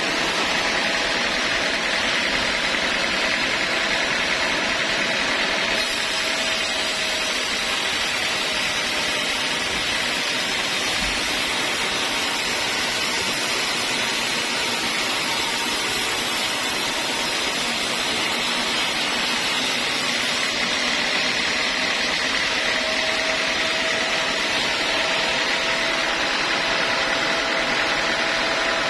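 Sawmill machinery running steadily: a continuous mechanical noise with a high whine, typical of a circular saw at work on wood.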